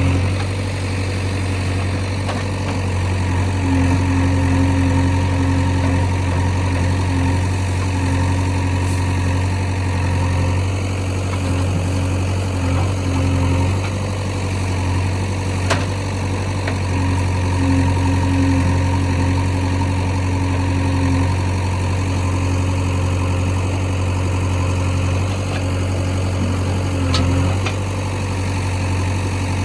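Heavy diesel engine of earth-moving machinery running at a steady low speed, with a higher hum that comes and goes above it and a couple of sharp clicks.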